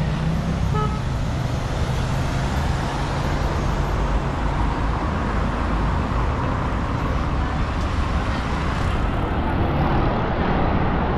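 City street traffic: passing cars with a steady road noise and low engine hum.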